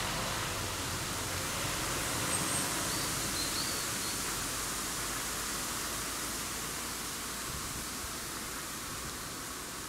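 Steady, even hiss of outdoor woodland background noise, fading slightly towards the end, with two faint short high chirps about two and three and a half seconds in.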